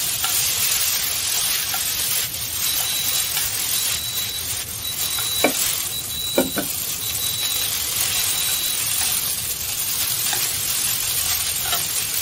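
Rice noodles sizzling steadily in a hot oiled nonstick wok as they are stir-fried and tossed with chopsticks. Two sharp clicks of the chopsticks against the wok come near the middle, about a second apart.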